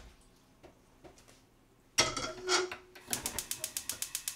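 A saucepan of water is set down on a gas hob's metal grate with a clank about two seconds in, with a second knock just after. Then the gas stove's igniter clicks rapidly, about eight clicks a second, as the burner knob is turned to light it.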